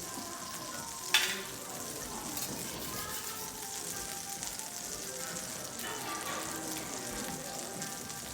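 Food sizzling steadily on a teppanyaki iron griddle, with one sharp clack about a second in.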